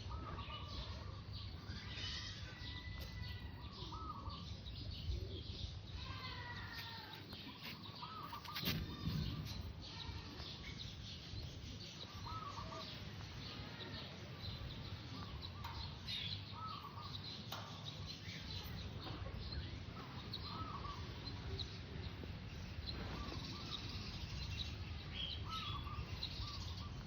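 Birds chirping in short, repeated calls over a steady low rumble, with a single knock about nine seconds in.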